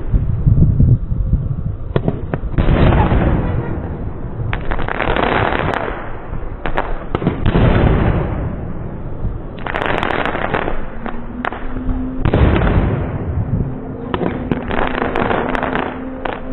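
Fireworks going off in repeated volleys, each a bang followed by crackling, about every two seconds.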